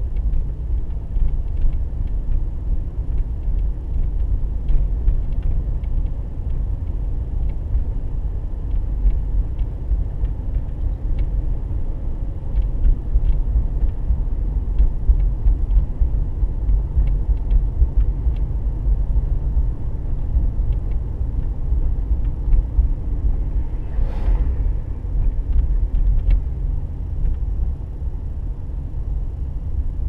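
Steady low rumble of a car driving slowly on a paved road, heard from inside the car: engine and tyre noise. Faint scattered ticks run through it, and there is a brief rushing sound about three quarters of the way through.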